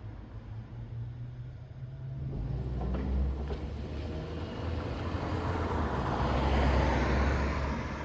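A vehicle passing close by. Its low rumble and rushing noise build from about two seconds in, are loudest near the end, then begin to fade.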